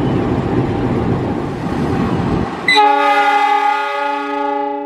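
Diesel locomotive and passenger coaches rumbling past, then, about two and a half seconds in after an abrupt cut, a CC 206 diesel locomotive's horn sounding one long multi-tone blast that fades near the end.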